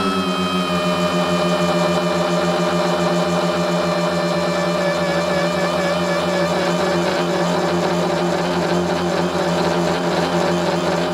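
Tricopter's three electric motors and propellers whining at flight throttle, heard from the onboard camera. The pitch eases down a little in the first second, then holds steady with small wavers as the throttle is corrected.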